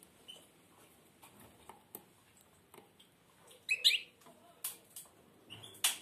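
Caged European goldfinch giving two short chirps, one about four seconds in and one just before the end, with scattered faint clicks between them and a sharp click at the very end.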